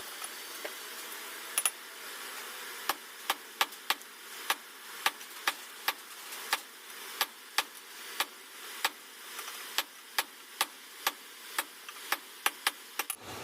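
Blacksmith's hammer striking hot steel on the anvil: a steady run of sharp strikes, about two to three a second, starting a second or so in.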